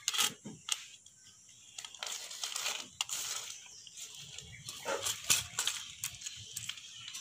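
Small handling noises of wiring a plastic switch board: scattered sharp clicks and rustling as a short insulated wire is fitted to a switch terminal and a screwdriver works the terminal screws.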